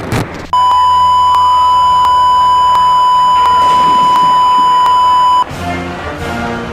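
Emergency-alert attention tone: one loud, steady, high electronic beep held for about five seconds, then cut off abruptly, with music coming back in near the end.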